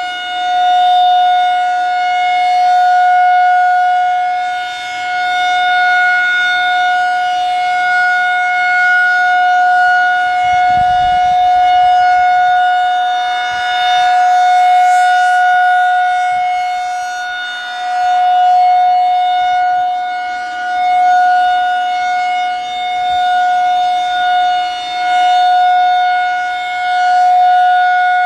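Federal Signal 2001-SRN single-tone chopper siren sounding a steady Alert tone at one unchanging pitch. Its loudness swells and fades every few seconds as the siren head rotates.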